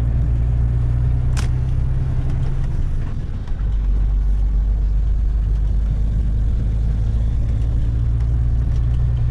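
Heavy truck's diesel engine running steadily, heard from inside the cab while driving. There is a sharp click about a second and a half in, and the engine note dips briefly around three and a half seconds in before picking up again.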